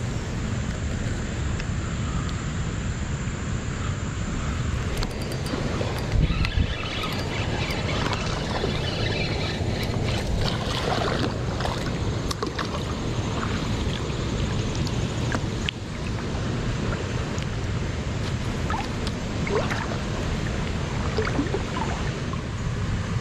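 Steady rush of creek water with wind buffeting the microphone. A few brief splashes and clicks come around the middle as a hooked small fish thrashes at the surface while it is reeled in.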